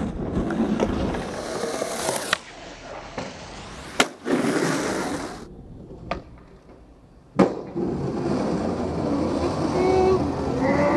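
Skateboard on concrete: three sharp board clacks and impacts, the last and loudest a landing near the two-thirds mark, with the rumble of urethane wheels rolling between them. Voices come in near the end.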